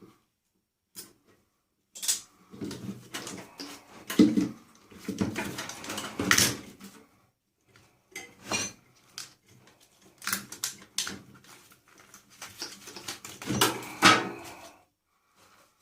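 Metal parts of a microwave clinking and clattering as they are handled and pulled apart for scrap, in irregular bursts of knocks and rattles.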